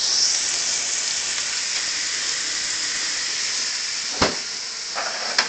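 Sliced baby bella mushrooms sizzling steadily in a hot frying pan, a constant hiss, with a single sharp knock about four seconds in.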